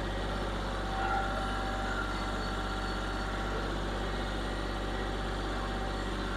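Kioti CK4020 compact tractor's diesel engine running at a steady low idle as the tractor creeps forward with its pallet forks. A faint thin whine starts about a second in.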